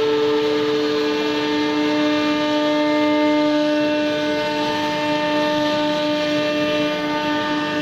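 CNC router spindle running at a steady high speed while engraving foam: a steady whine over a hiss of cutting.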